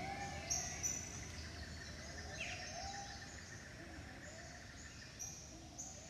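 Rainforest birds calling at dawn: a low, upturned call repeating about twice a second, short high chirps, and a falling whistle about halfway through. The whole chorus is faint and slowly fades.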